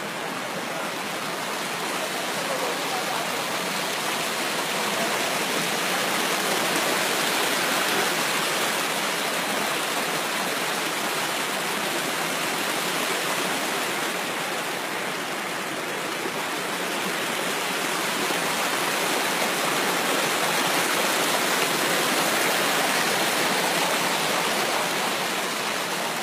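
Shallow rocky stream rushing and splashing over stones, a steady hiss of running water.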